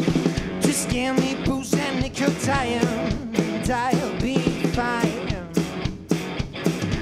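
Live garage rock from a guitar-and-drums duo: distorted electric guitar and a drum kit playing together, with a sung vocal line over the middle of it.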